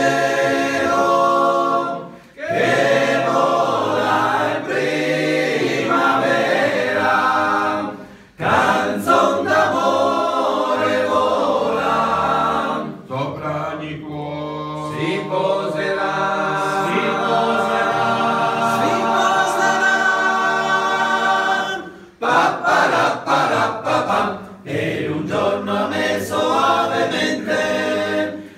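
A group of men singing a slow song together a cappella, several voices at once, with short breaks for breath between phrases.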